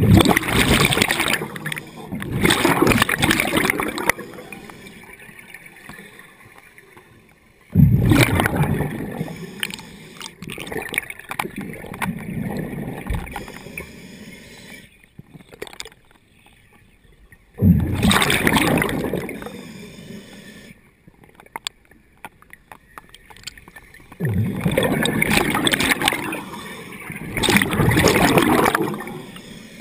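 Scuba diver's exhaled breath bubbling and gurgling out of the regulator underwater, in four long bursts several seconds apart, one per breath, each starting suddenly and fading, with quieter gaps between.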